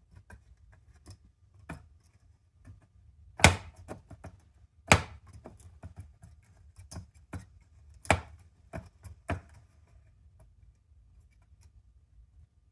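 A scattered series of sharp clicks and taps, with four louder knocks in the middle of the stretch.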